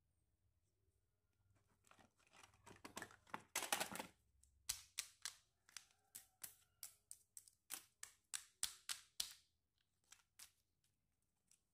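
Plastic toys rustling and scraping as they are rummaged in a fabric storage box. Then comes a run of quick, sharp plastic clicks and taps, about three a second, as a pair of hard plastic toy sandals is handled.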